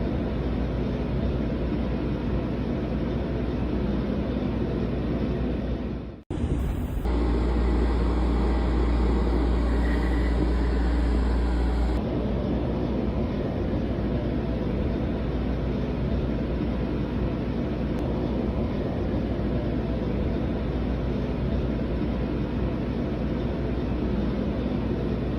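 Steady low rumbling noise across several clips cut together. It drops out briefly about six seconds in, and is louder and deeper from about seven to twelve seconds.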